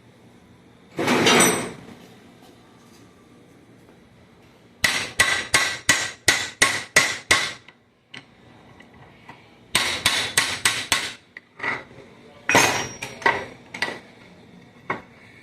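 Hammer blows on steel gearbox parts, knocking a gear off the shaft of a Chevrolet Cobalt manual gearbox: three quick runs of sharp strikes, about three a second, after a short clatter about a second in.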